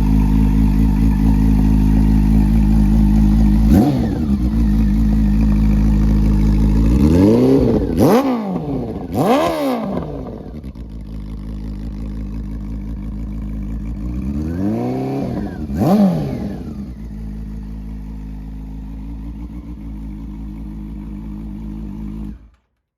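Honda CB400 VTEC inline-four motorcycle engine idling, with quick throttle blips: a small one about 4 seconds in, two sharp revs around 8 and 9.5 seconds, and another near 16 seconds, each rising and dropping straight back to idle. The sound cuts off suddenly just before the end.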